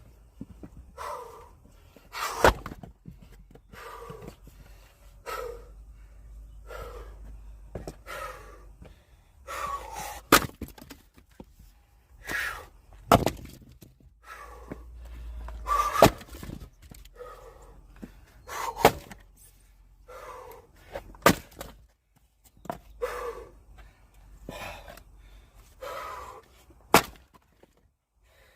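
Firewood being split by hand with an axe: sharp strikes on the logs every few seconds, each splitting the wood, with a person breathing hard between strikes.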